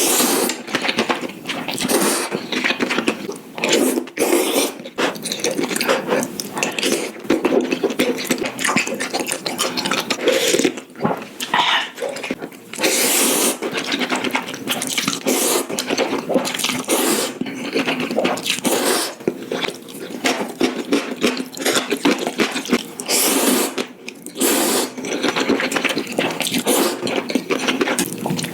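Close-miked eating sounds: wet slurping and chewing of spicy ramen noodles, in quick irregular bursts.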